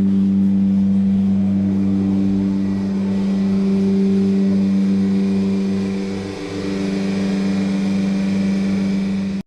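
A machine running steadily with an even, low hum, dipping briefly about six seconds in, then cutting off abruptly.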